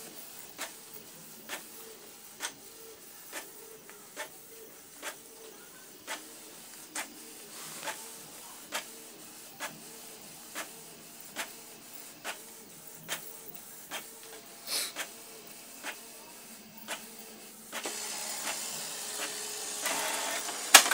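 Canon MP287 inkjet printer printing a page, its print-head carriage shuttling with a sharp click about once a second as the paper advances, then a louder steady whirr for the last few seconds. It is printing normally again, the P10 error cured by replacing the faulty resistor R301 on the mainboard.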